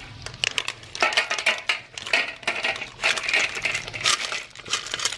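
Rapid, continuous clinking and clattering of a utensil in a pot of water-snail stew, the snail shells knocking against each other and the pot.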